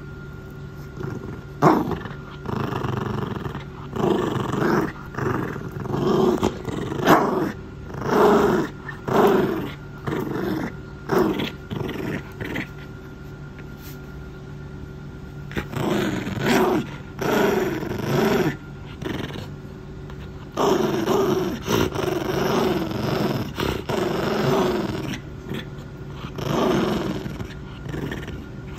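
A white puppy growling in repeated short bouts with a plush toy in its mouth, possessive growling over the toy. The growls come in runs, with a pause of a couple of seconds about halfway through.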